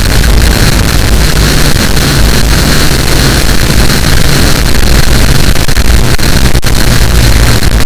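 Loud, harsh distorted noise, dense across all pitches and near full volume, with a steady low drone underneath.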